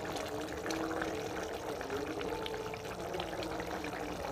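A steel ladle stirring thick pea-and-paneer curry in a pot over a wood fire: steady wet sloshing and bubbling, with small scattered clicks.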